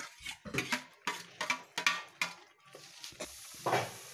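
Metal slotted spoon stirring chicken in yogurt masala in a kadai, scraping against the pan in quick strokes, about three a second, with a stroke again near the end. The mixture sizzles.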